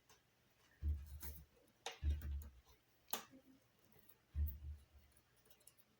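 Handling noises on a tabletop: three soft thumps and a couple of sharp clicks as a small model car's parts are handled and opened.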